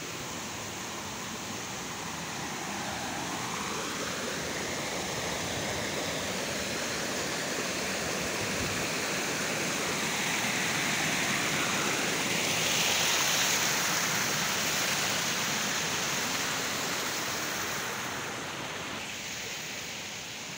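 Small garden waterfall splashing over rocks into a pond. The steady rush grows louder to a peak a little past halfway, then fades.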